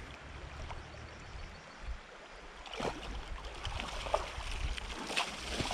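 Water splashing around a wader's legs as he wades through a shallow river, in uneven sloshing steps that start about halfway through, over the steady rush of the river.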